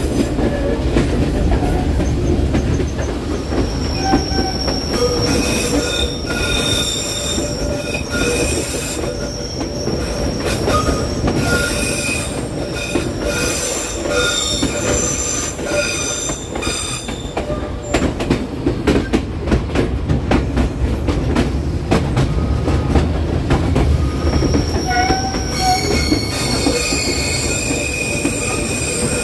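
Passenger train rolling on a tight curve, its wheel flanges squealing against the rails in several high steady tones over a low rolling rumble. The squeal drops away for a few seconds past the middle, where a run of sharp clicks from the wheels and rails comes through, and returns near the end.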